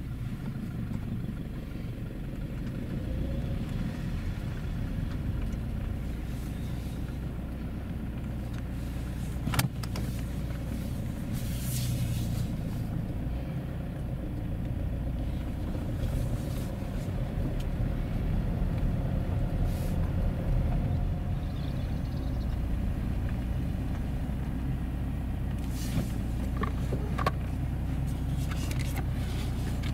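Car driving slowly along a rough farm track, heard from inside the cabin: a steady low rumble of engine and tyres, with a few short knocks and rattles from the bumps about a third of the way in and again near the end.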